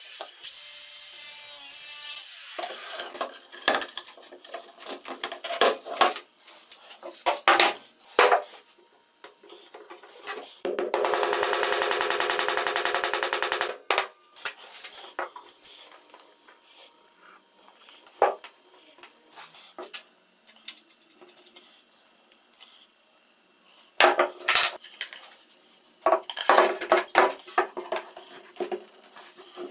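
Angle grinder cutting into PVC pipe, stopping about two and a half seconds in. Knocks and clatter of plywood discs and plastic pipe being handled follow, with a power tool running steadily for about three seconds near the middle.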